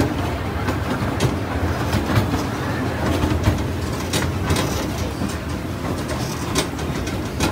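Amusement-park ride train rolling along the track, heard from its passenger car: a steady low rumble with a scattering of sharp clicks and clacks from the wheels on the rails.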